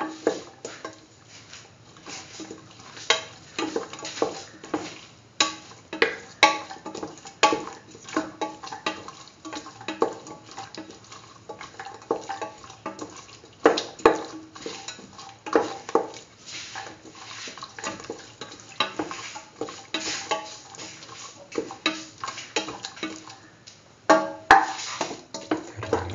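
A spoon stirring and scraping a thick chickpea and bell pepper mixture in a metal pan, with irregular clinks and scrapes of the spoon against the pan, some louder strikes among them.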